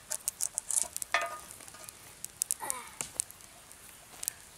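Freshly lit campfire of thin, still-moist sticks crackling with irregular sharp pops and snaps.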